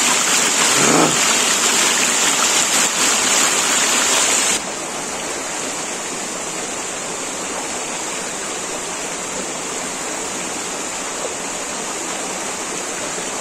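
Rushing water of a river running over rocks into a bathing pool: loud and close for the first four and a half seconds or so, then it drops suddenly to a softer, steady flow.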